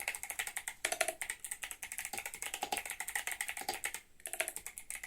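Fast typing on an 8BitDo Retro Mechanical Keyboard: a rapid, steady stream of clicky mechanical key presses, with a brief pause about four seconds in.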